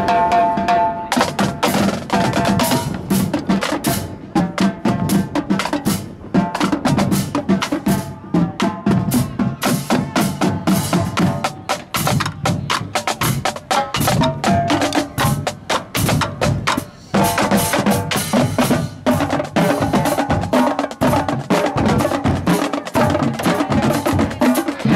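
Marching drumline playing a fast, dense rhythm on snare, tenor and bass drums, with brief breaks a few times.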